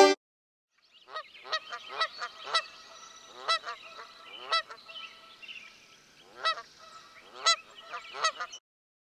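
Waterfowl honking: a string of short honks starting about a second in, some much louder than others, with a brief lull in the middle.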